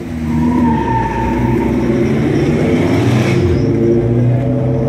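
Red Roadkill van's engine running hard under throttle as the van accelerates through an autocross run, loud, its pitch rising and falling with the throttle and dipping briefly about three and a half seconds in.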